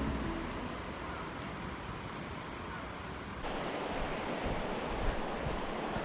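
River water rushing over shallow riffles, mixed with wind buffeting the microphone. The noise shifts abruptly about three and a half seconds in.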